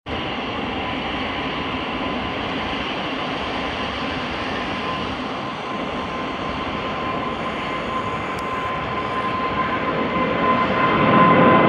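Twin-engine widebody jet airliner climbing out after take-off: steady jet engine noise with a high whine, getting louder near the end as it climbs past.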